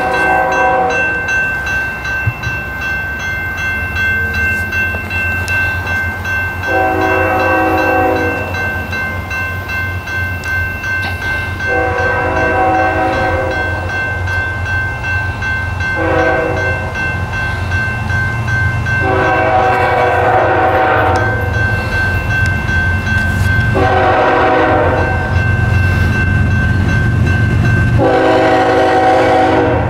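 Multi-chime air horn of a BNSF ES44DC diesel locomotive sounding a series of long blasts with one short blast near the middle, the long-long-short-long grade-crossing signal. Under the horn a crossing bell rings steadily, and the rumble of the approaching train grows louder toward the end.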